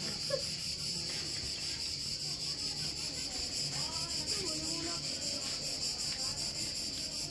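Cicadas chirring: a steady, high-pitched buzz with a fast even pulse.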